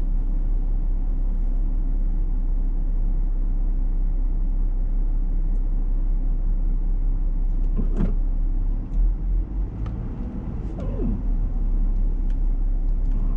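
Steady low rumble of a car idling, heard from inside the cabin. About nine seconds in the sound changes as the car pulls away.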